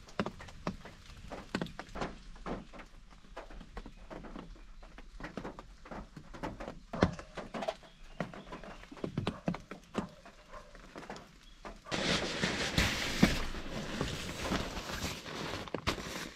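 Scattered light knocks and clicks of camping gear being handled and shifted in a car's back seat. About twelve seconds in, a louder steady rustling hiss takes over.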